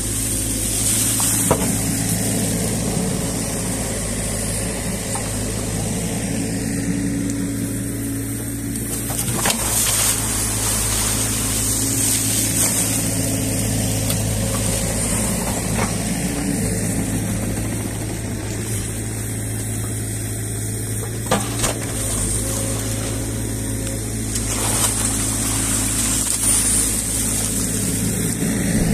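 New Holland Kobelco E50.2 mini excavator's diesel engine running steadily under load as the hydraulics lift a bucket of ditch silt and reeds and swing it to the bank. A few short knocks stand out.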